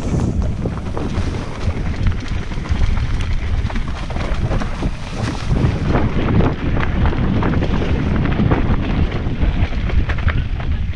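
Wind buffeting the microphone of a camera on a mountain bike riding fast downhill, a heavy, steady rumble, with many small clicks and knocks as the bike jolts over the rough, rocky trail.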